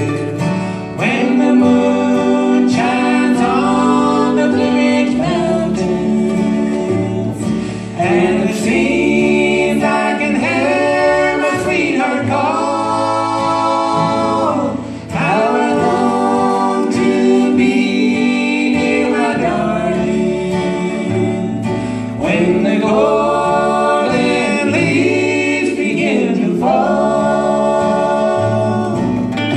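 Live bluegrass band playing: voices singing in harmony over mandolin, acoustic guitar and upright bass.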